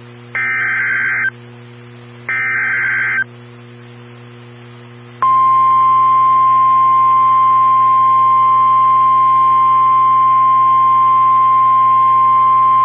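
Emergency Alert System SAME header for a tornado warning: the last two of three harsh digital data bursts, each about a second long. After a pause of about two seconds with only hiss and a steady hum, the National Weather Service 1050 Hz attention tone starts about five seconds in and holds as one loud steady tone.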